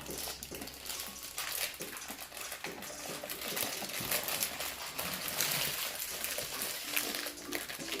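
Plastic and foil toy wrappers being crinkled and torn open, a dense crackling with many small clicks and taps.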